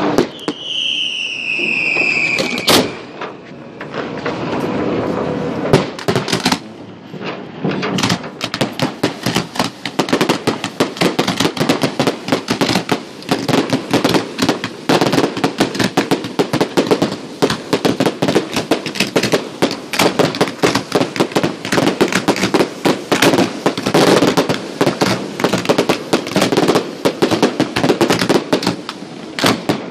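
Fireworks going off. A whistle falls in pitch over the first couple of seconds among a few bangs, then from about eight seconds in come dense, rapid cracks and bangs, many a second.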